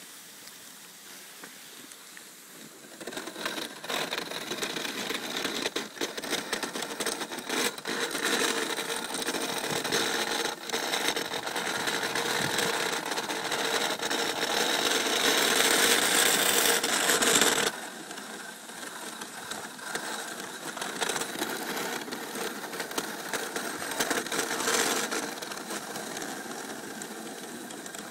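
Dog sled's runners scraping and hissing over snow, with the sled rattling as the team pulls it along. It gets loud a few seconds in and drops off suddenly a little past the middle.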